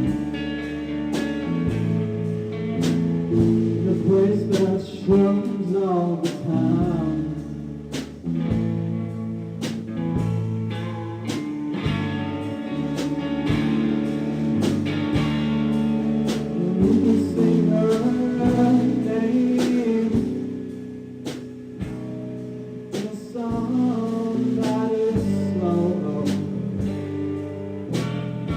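Live band music led by guitar: chords ring over a steady beat, with a wavering melodic line above them at times.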